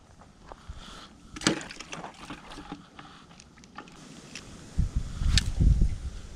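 Scattered light clicks and ticks from handling a spinning rod and reel, loudest about a second and a half in. From about five seconds in there is low rumbling on the microphone, with one sharp click among it.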